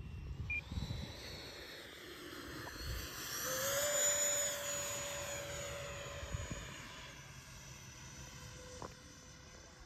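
Electric ducted fan of a Fly Fans JAS-39 Gripen 70 mm RC model jet whining on a low pass. It grows louder and higher to a peak about four seconds in, then drops in pitch and fades as the jet flies away.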